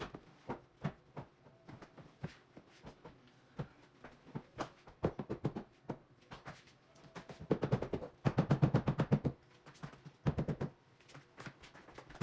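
Irregular knocks and clacks of couch sections and hardware being handled and fitted together, with a fast run of rattling clicks a little past the middle and a shorter one soon after.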